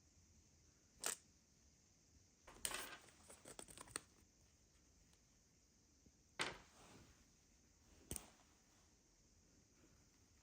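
Quiet handling of small sewing-machine accessories and their packaging: a few separate clicks and knocks, with a brief crackling rustle of packaging a few seconds in.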